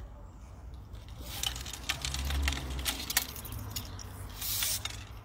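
Scattered light clicks and taps as carbon fishing-pole sections and a plastic rig winder are handled, with a brief rustle a little after four seconds.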